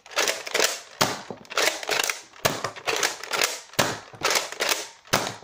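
Nerf Modulus dart blaster being primed and fired over and over: sharp plastic clacks, each with a brief rush of air, about twice a second.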